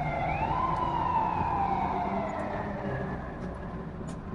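Police car siren wailing: the tone sweeps up quickly about half a second in, then slides slowly down, fading gradually toward the end.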